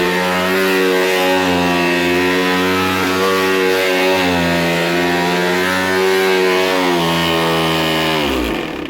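Oreck Hypo-Allergenic Plus XL2 upright vacuum running loud and steady, then switched off near the end, its pitch falling as it winds down. The awful noise comes from a failed brush roll bearing.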